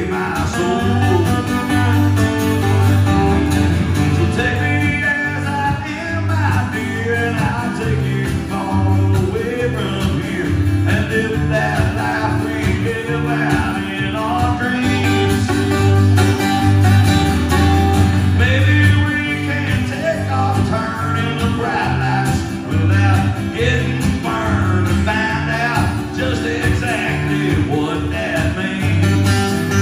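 Live country song on two acoustic guitars, strummed and picked, with a man singing.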